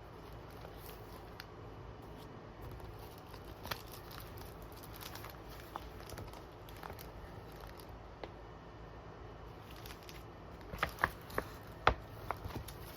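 Small items being handled at a desk: scattered light taps and crinkles, then a quick run of sharp clicks and snaps near the end.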